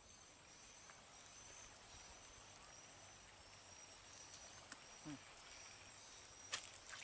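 Faint insect chirping: a short high chirp repeating about twice a second over a steady thin high drone, with a soft hiss of light rain falling on the canal water. A sharp click near the end.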